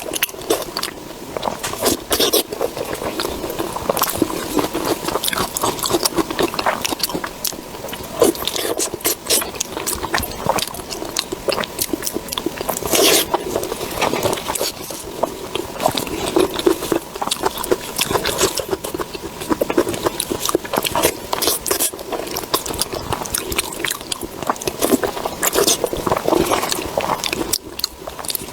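Close-miked eating sounds: a person chewing and biting food, a dense run of small clicks and mouth noises with no pause.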